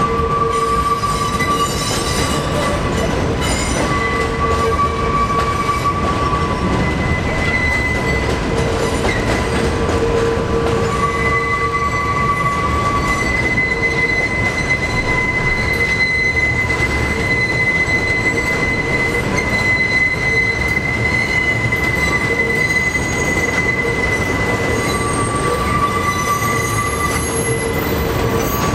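New York City subway train running over an elevated flyover connection, its steel wheels squealing in several high, steady tones that come and go over the continuous rumble of the cars.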